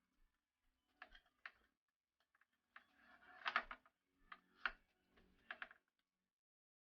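Faint sharp clicks and taps of hands handling desktop PC hardware during a 2.5-inch SSD install, in small clusters with the loudest in the middle.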